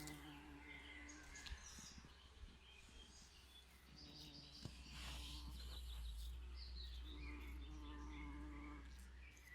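Bees buzzing as they fly past, the buzz coming and going three times, with small birds chirping in the background.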